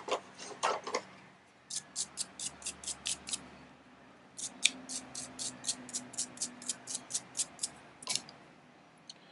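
A small brush scrubbing metal filings off a freshly cut tubular key: quick, rhythmic strokes at about five a second, in two runs with a short pause between them.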